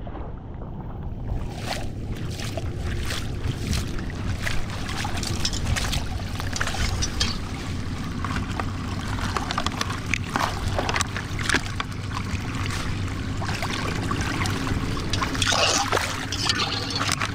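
Floodwater running and trickling into a curb drain inlet as the blockage of plastic bottles and debris is pulled clear, with scattered clicks and knocks from the handling.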